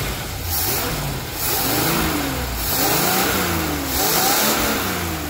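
Carbureted Chevy V8 in a square-body C10 revved by hand at the carburetor throttle linkage: four quick blips, each rising and falling back toward idle, with a hiss at each opening. It runs clean, with no clatter.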